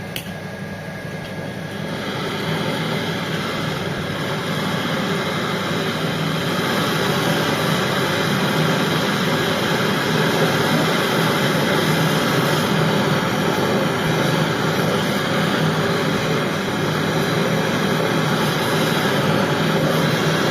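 Steady mechanical running noise with a faint hum in it, growing louder over the first several seconds and then holding level.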